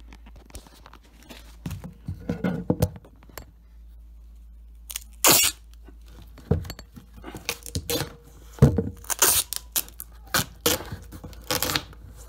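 Irregular knocks, taps and scrapes as a white wooden trim strip is fitted along the edge of a plywood box, with one louder, sharp noise about five seconds in.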